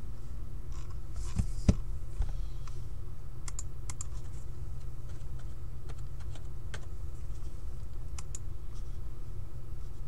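Scattered light clicks and taps of hands handling things on a desk, with two louder knocks about a second and a half in, over a steady low hum.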